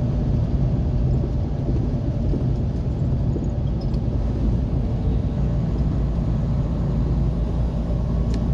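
Steady low rumble of engine and tyre noise inside a moving vehicle's cabin, cruising at road speed.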